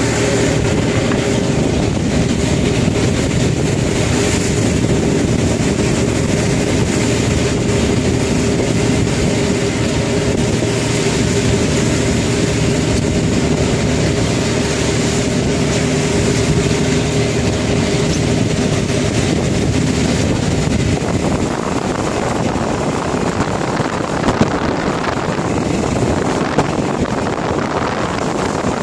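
Fishing boat's engine running steadily under way, with water rushing along the hull. About two-thirds through, the steady engine note fades and the rush of water and wind takes over, with a couple of short knocks near the end.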